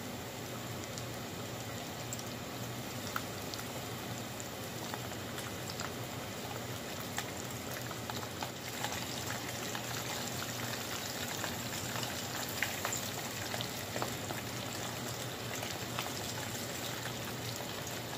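Breaded butterfly shrimp deep-frying in hot oil in a saucepan: a steady sizzle with scattered sharp ticks.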